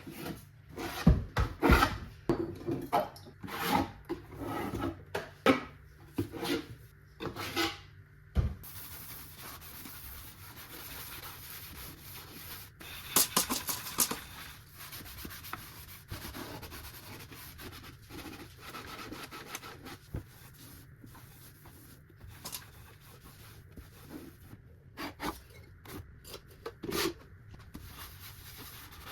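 Scrubbing and rubbing during household cleaning. A quick run of knocks and clatters comes in the first eight seconds or so, then a steadier rubbing with a few scattered knocks.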